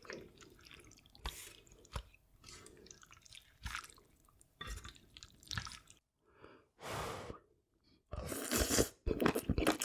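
Close-miked eating sounds: utensils clicking, short wet slurps and chewing, with a louder stretch of chewing and slurping near the end.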